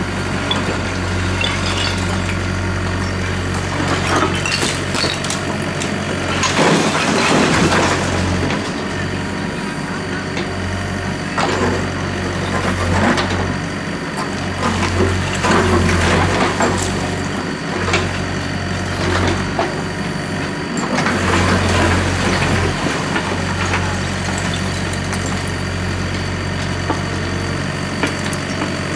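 Doosan DX55W wheeled mini excavator's diesel engine running steadily as it works. Over it comes repeated clattering and crunching as the bucket scrapes into a pile of broken brick and stone, and as the rubble tumbles into a steel dump-truck bed.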